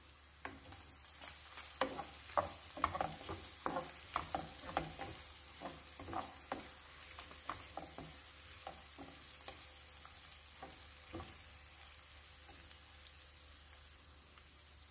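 Wooden spoon stirring beef chunks, onion and tomato paste in a stone-coated frying pan, knocking and scraping against the pan as the paste is sautéed. The clicks and scrapes come thick and fast at first and thin out after about ten seconds.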